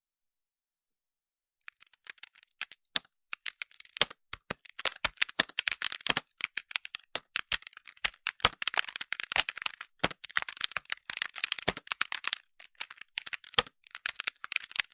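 Typing on a computer keyboard: rapid, irregular key clicks start about two seconds in and continue with only brief pauses, then stop suddenly at the end.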